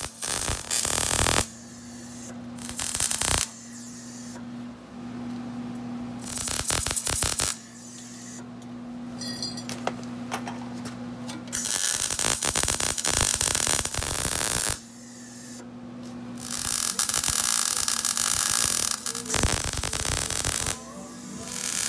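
Wire-feed welder arcing in a series of welds: short tacks of about a second, then longer beads of two to three seconds, each a loud steady crackle. A steady electrical hum carries on between the welds.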